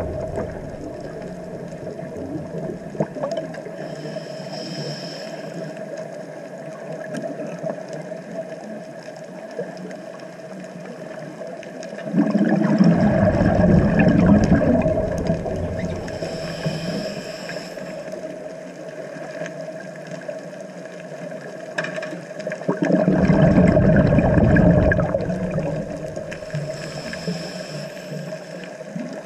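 Scuba diver's breathing heard through an underwater camera housing: twice, a loud rush of exhaled bubbles lasting about three seconds, with fainter hisses between them, over a steady underwater hum.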